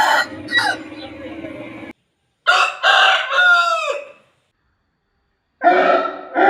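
Aseel roosters crowing, slowed down: a few short calls at the start, then after a cut to silence a long crow with falling pitch about two and a half seconds in, and another crow starting near the end.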